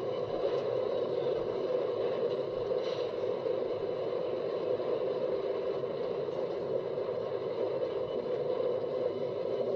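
Intimidator 305 roller coaster train being hauled up its cable lift hill: a steady mechanical whir, played back through a screen's speaker.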